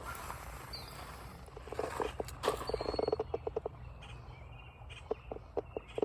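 A frog calling: a run of short, quick clicks that come close together in the middle, with a few more spaced out near the end, and a faint short bird chirp.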